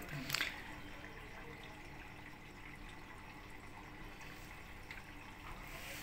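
A click from the power button of a front-load washing machine being pressed to switch it off, then a faint steady trickle of water inside the machine.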